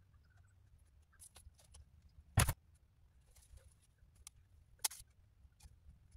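Hands sowing seeds from a foil packet into soil blocks in a plastic tray: faint scattered clicks and rustles, with two louder sharp clicks about two and a half and five seconds in.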